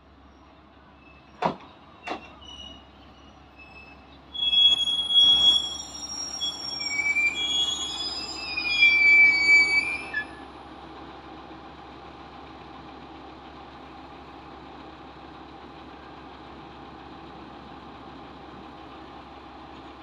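Ibara Railway 'Star Train' diesel railcar pulling into the station: two sharp clacks about a second and a half in, then loud high-pitched brake and wheel squeal from about four seconds in as it slows to a stop. The squeal cuts off about ten seconds in, leaving the railcar's diesel engine idling steadily.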